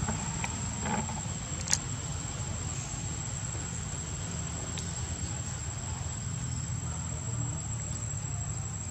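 Forest ambience: a steady high-pitched insect drone over a low rumble, with one sharp click about two seconds in.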